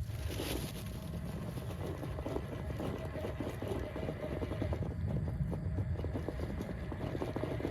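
Redcat Vertex 6 1/6-scale RC rock crawler driving over rough ground: a steady motor and drivetrain whir, with many small clicks and crunches from the tires and chassis on rock and dirt.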